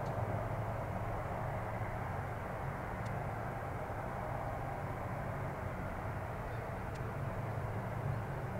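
Distant Boeing 737-800 jet engines (CFM56) running with a steady low drone.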